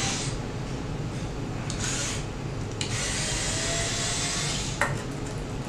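Screwdriver working the screws of a small sheet-metal access door at the bottom of a vending machine's back panel: metal scraping and rubbing, with short scrapes near the start and about two seconds in, then a longer steady scrape from about three seconds in to near five.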